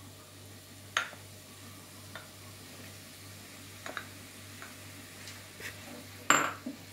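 Raw chicken strips dropped into a pan of frying onion-tomato masala, with a low steady sizzle. A spoon clinks against the glass bowl and pan a few times, the loudest knock near the end as the spatula starts stirring.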